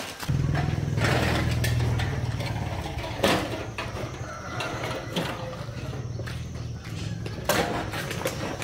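A machine running with a steady low hum that starts suddenly less than a second in, with a few sharp knocks over it, the loudest about three seconds in.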